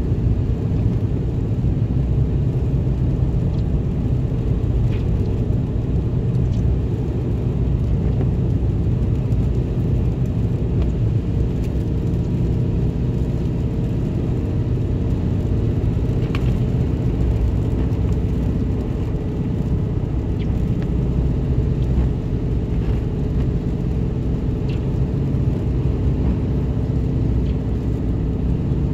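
Steady low rumble of a vehicle driving at highway speed on wet pavement, heard inside the cab: engine and tyre noise, with a few faint ticks.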